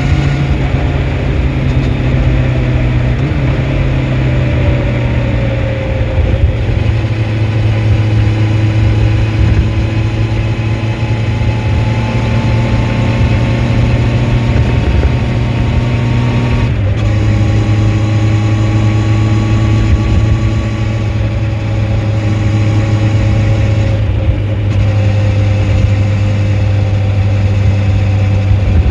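2004 Honda CBR1100XX Blackbird's inline-four engine under way, its pitch climbing slowly as the bike gathers speed; about 17 seconds in a gear change drops the pitch, and it climbs again. Wind rush on the microphone sits underneath.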